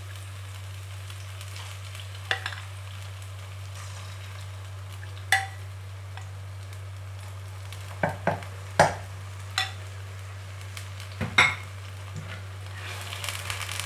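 Marinated chicken slices sizzling in hot oil in a wok as more pieces are tipped in from a glass bowl. A steady frying hiss, broken by several sharp taps and clinks, the loudest about nine and eleven seconds in.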